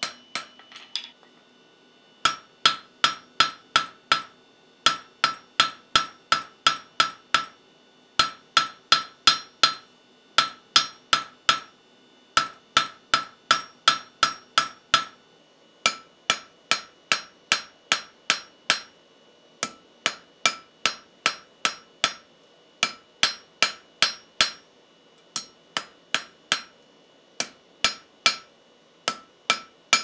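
Hand hammer striking red-hot railroad-spike steel held in tongs on an anvil. The blows ring and come about three to four a second, in runs of several blows with short pauses between, drawing the shank out longer and thinner.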